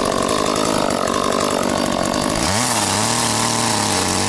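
Two-stroke ECHO chainsaw revving high as it cuts into a log, then dropping back to a low, steady idle about two and a half seconds in.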